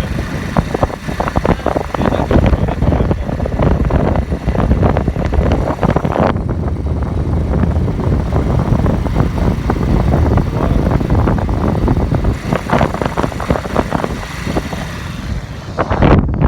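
Rumbling vehicle noise with wind buffeting the microphone, as from inside or on a moving car. The treble drops away abruptly about six seconds in and returns about twelve seconds in.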